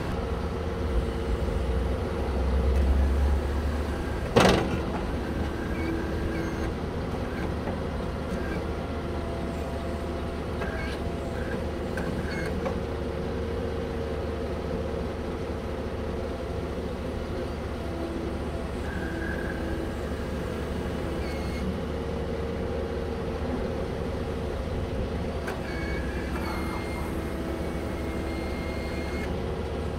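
Bobcat mini-excavator's diesel engine running steadily under work, with steady pitched whines from the hydraulics that come and go as the arm and tiltrotator move. A single sharp knock about four seconds in.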